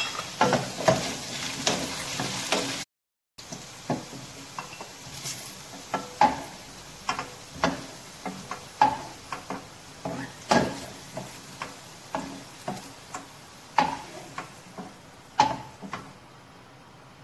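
Potato and carrot chunks sizzling in hot oil in a wok while a spatula scrapes and knocks against the pan about once a second as the pieces are stirred and scooped out. The sound cuts out completely for a moment about three seconds in.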